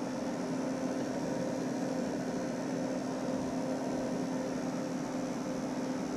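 Steady low electrical or fan hum with a constant tone over an even hiss.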